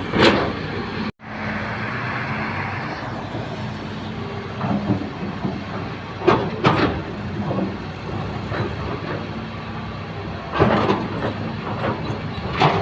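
Hitachi excavator's diesel engine running steadily while it loads soil into a dump truck, with several sharp clanks and knocks from the working machinery. The sound cuts out for an instant about a second in, with a hiss for a couple of seconds after.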